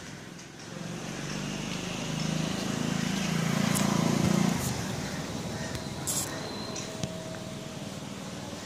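A motor vehicle passing by: its engine swells over a few seconds, loudest about four seconds in, then fades away.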